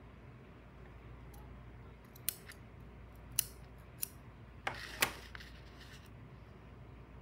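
Metal scissors snipping yarn and being handled on a tabletop: about five sharp clicks over a few seconds, the loudest near the end, with a brief rustle of the cardboard being moved.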